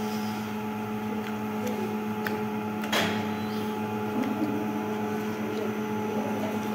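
A steady mechanical hum, as from a running household appliance, with one sharp click about three seconds in.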